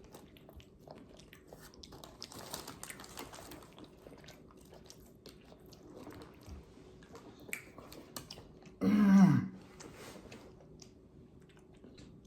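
A person chewing food close to the microphone, with many small mouth clicks. About nine seconds in, a loud, short vocal sound falls in pitch.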